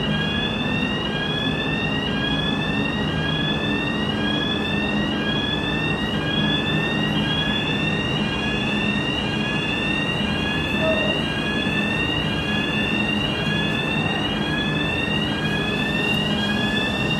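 Fire alarm sounder during an alarm system test, sounding a rising sweep tone that repeats about once a second. A steady rushing noise and low hum run underneath.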